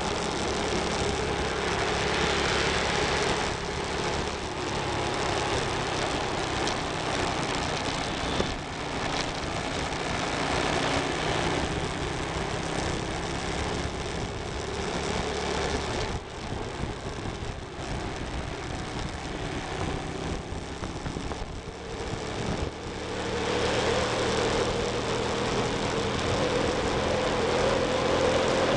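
Motorcycle engine running at road speed under wind rushing over the microphone. The sound drops for several seconds past the middle, then the engine pulls louder again near the end.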